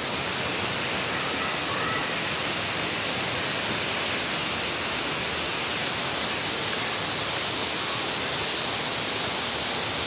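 Steady rush of running water, an even hiss that neither rises nor falls.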